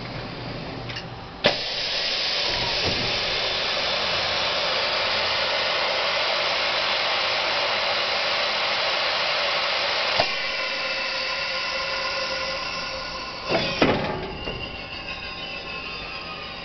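Macpi double-table heat transfer press mechanism working. A sharp click is followed by a steady hiss for about nine seconds, which stops with another click. A quieter hum with faint steady tones comes after, with a couple of clunks about three-quarters of the way through.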